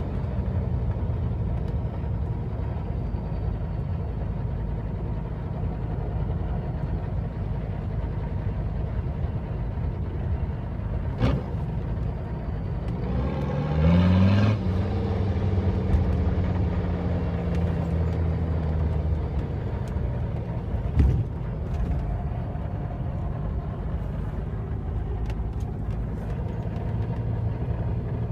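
Mercedes-Benz 300SD diesel engine idling, revved briefly about halfway through before settling back to idle, with two sharp clicks, one a little before the rev and one well after it. The owner says two of its injectors are bad.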